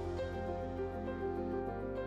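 Background music: slow, held notes over a steady low bass note.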